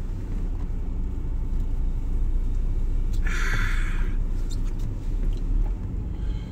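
Steady low rumble of a Chevrolet S-10 pickup's engine and road noise, heard from inside the cab, with a brief hiss about three seconds in.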